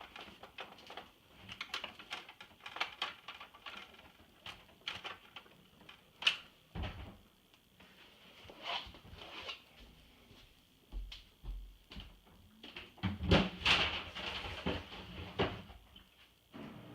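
Irregular clicks, scrapes and knocks of a screwdriver and hands working at a stubborn screw in an iMac G3 being taken apart, with a busier run of louder knocks about two-thirds of the way through.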